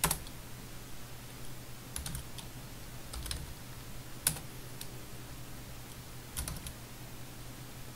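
Computer keyboard keystrokes: scattered single clicks and short runs of typing, with pauses between them.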